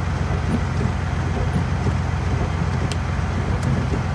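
Kenworth semi truck's diesel engine idling, a steady low rumble heard from inside the cab, with a couple of faint ticks near the end.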